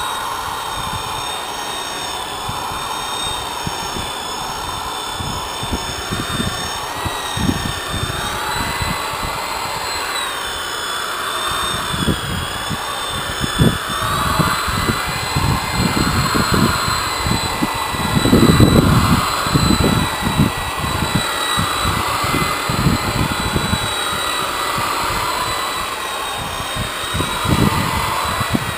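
Corded electric rotary polisher running with a steady high motor whine that wavers slightly in pitch as the foam pad works the boat's fibreglass hull, buffing the paint. Under it is a rough rubbing noise from the pad on the hull, heaviest about two-thirds of the way through.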